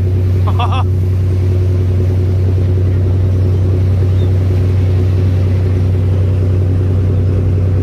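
Fishing cutter's diesel engine running steadily under way: a deep, even drone with a steady higher hum over it.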